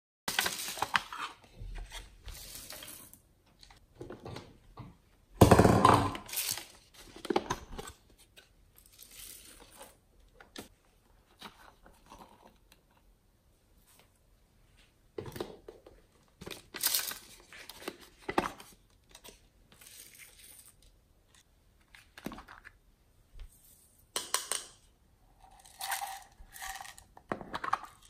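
Hands handling small plastic slime containers and sprinkling sequins and glitter: intermittent clicks, scrapes and rustles of plastic, with the loudest clatter about six seconds in.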